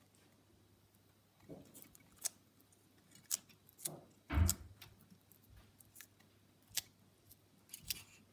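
Bearded dragon biting and chewing a strip of green vegetable: irregular sharp, crunchy clicks, with one louder thump about four seconds in.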